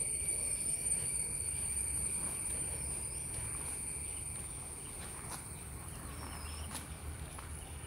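Insects shrilling in a steady high-pitched drone, with a few short faint chirps and clicks over it and a low rumble underneath.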